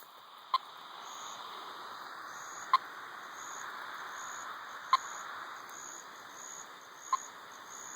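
Wildlife radio-telemetry receiver beeping: a short, sharp tone pulse about every two seconds over steady receiver static, each beep the signal from the timber rattlesnake's transmitter, strong because she is close. A high insect trill pulses quietly behind it.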